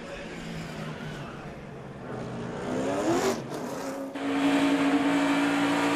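NASCAR Nationwide Series stock car V8 engines. Near three seconds in an engine revs up, and after a brief break one engine runs loud and steady at a constant pitch from about four seconds in.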